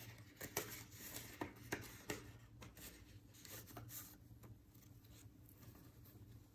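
Faint rustling of a paper cash envelope and a stack of paper dollar bills being handled, with a few sharp paper crackles in the first two seconds, then softer rustling.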